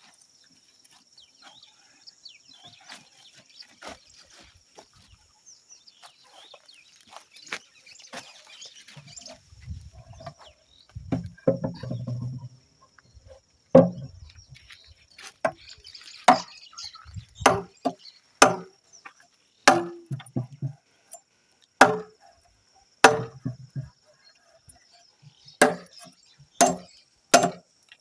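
Repeated blows of a tool on wood, roughly one a second, starting about halfway through after quieter handling noises, as a wooden cover for a traditional beehive is worked.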